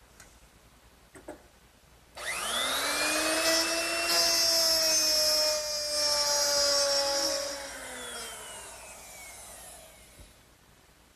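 Electric router with a 1/2-inch mortising bit starting about two seconds in with a rising whine, then running loud while it plows a dado groove in a wooden shelf. It is switched off at about the eight-second mark and winds down with a falling whine.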